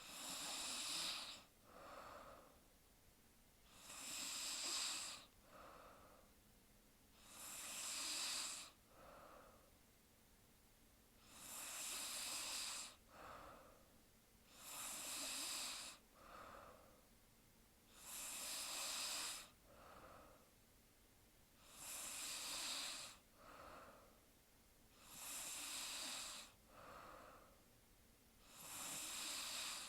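A sleeping woman's slow, rhythmic snoring breaths: a faint hissing breath about every three and a half seconds, each followed by a shorter, softer one.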